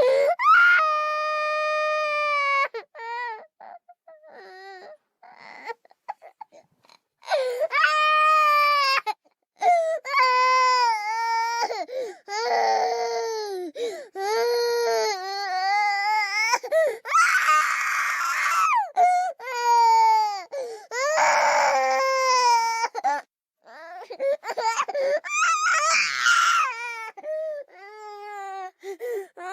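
A little girl crying: long, high-pitched wails that waver up and down, broken by short gaps and sobbing breaths, with harsher, louder screaming cries twice in the second half.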